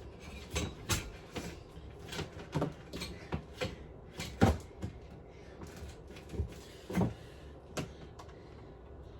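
Irregular knocks and clunks of objects being handled and set down, a dozen or so. The loudest comes about four and a half seconds in, with another strong one near seven seconds.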